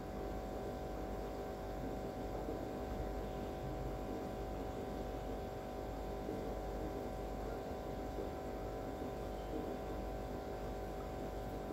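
A steady hum made of several even tones over a low drone, with no change in level.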